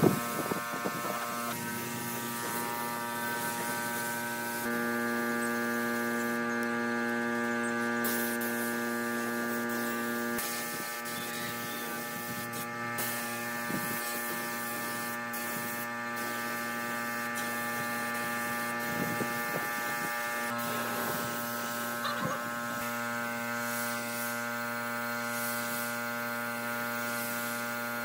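Compressed-air spray gun hissing as it sprays wood finish, over a steady machine hum. The hiss breaks off briefly now and then as the trigger is released.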